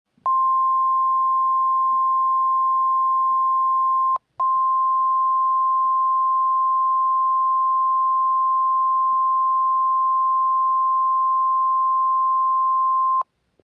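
NOAA Weather Radio 1050 Hz warning alarm tone: a single steady high-pitched beep held for about thirteen seconds, cut by a brief break with clicks about four seconds in. It signals that a warning message follows, here a high wind warning.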